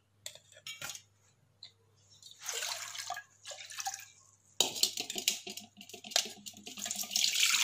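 Soaking water with almonds and poppy seeds poured from a steel bowl through a wire-mesh strainer, splashing and trickling into a bowl. A few light metal clicks come in the first second or so, and a steady pour starts about halfway through and grows louder near the end.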